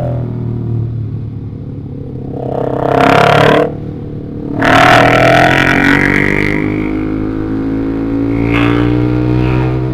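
Engine noise of a ride in road traffic: a steady engine drone, two loud rushing bursts about three and five seconds in, then the engine pitch rising steadily in the second half.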